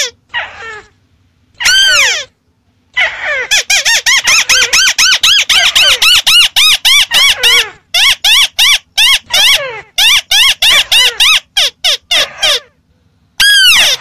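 White-browed crake calling: a few separate harsh notes in the first couple of seconds, then from about three seconds in a fast run of rising-and-falling notes, several a second, breaking into shorter runs with gaps near the end.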